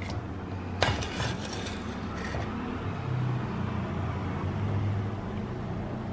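A metal spoon knocks once against the clay curry pot about a second in, followed by a few lighter scrapes as a piece of thick-gravied beef is lifted out, over a steady low rumble.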